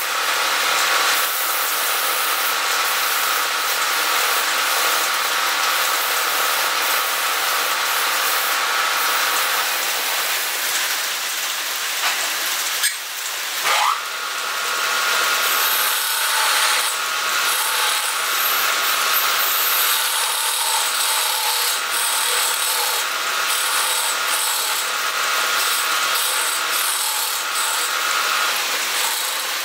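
Wood lathe spinning a turned spindle while sandpaper is held against the turning wood, a steady rubbing hiss. Partway through, after a short rising whine, a thin turning tool scrapes the spinning wood with the same steady rasping hiss.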